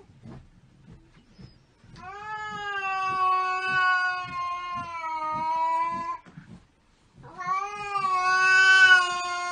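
Kitten giving two long, drawn-out meows, each several seconds long and held at a steady pitch, with a short pause between them.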